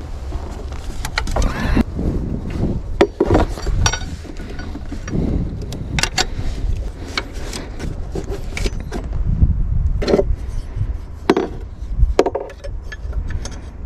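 Hand tools and metal parts clinking and knocking as hands work in a car's engine bay, with rubbing and handling noise and a steady low rumble underneath. The sharpest knocks come about ten and eleven seconds in.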